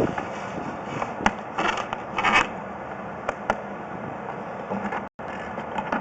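Handling noise: scraping and rubbing with a few sharp clicks over a steady background hiss, cutting out for an instant near the end.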